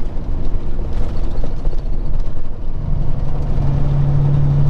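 Peterbilt 379 semi truck's diesel engine running as the truck drives, a steady low rumble mixed with road noise. About three seconds in, a steady low hum rises out of the rumble and holds.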